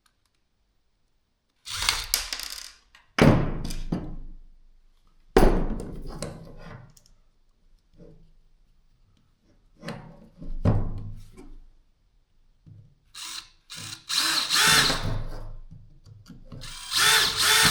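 DeWalt cordless drill run in a series of short trigger pulls, about six bursts, each starting sharply and winding down with gaps of quiet between.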